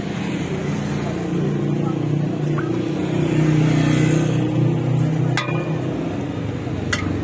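A motor vehicle engine running close by, its hum swelling to a peak about four seconds in and then easing, as in traffic passing on the road. Two sharp clicks come near the end.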